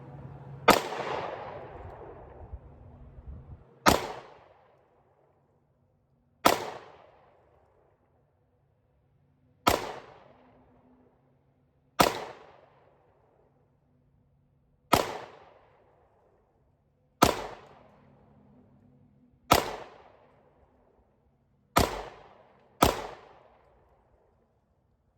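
Ten 9mm shots from a Glock 43X Gen 4 pistol, fired one at a time every two to three seconds, with the last two about a second apart. Each sharp crack tails off in a short echo.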